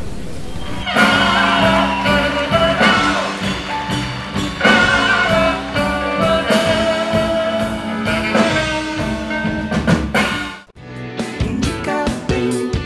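Band music with a drum kit and a melody line. Near the end it cuts off abruptly and a different, guitar-led tune starts.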